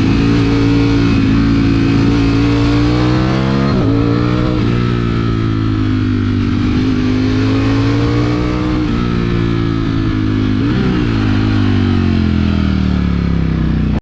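Ducati Streetfighter V4S's V4 engine running under way, its pitch climbing and falling several times, with quick pitch jumps about four seconds in and again near eleven seconds that fit gear changes, over a steady wind rush.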